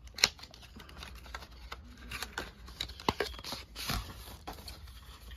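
Scattered light clicks, taps and rustling of cosmetic products and packaging being handled, with one sharper click just after the start.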